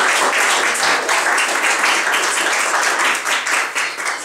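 Audience applauding, a dense patter of clapping that thins out near the end.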